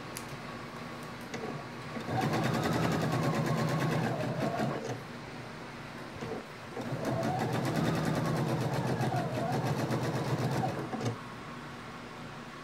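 Domestic sewing machine stitching a quilt seam in two runs, the first about two seconds in and the second about seven seconds in, each rising in pitch and then easing off as it stops. A steady fan hum sits underneath.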